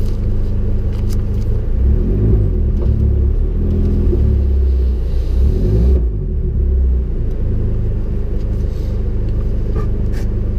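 Rally car engine idling, heard from inside the cabin, with the revs raised and varied for a few seconds from about two seconds in before settling back to a steady idle.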